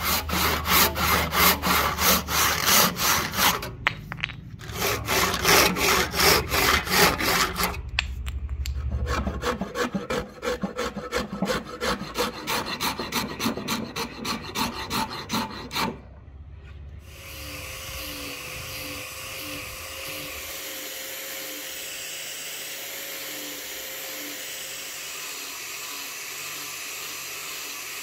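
A hand rasp filed in quick back-and-forth strokes across a rosewood axe handle, making a loud scraping rasp with two short pauses. About two-thirds of the way in, this gives way to a quieter, steady whirr from an electric grinder fitted with a sanding pad.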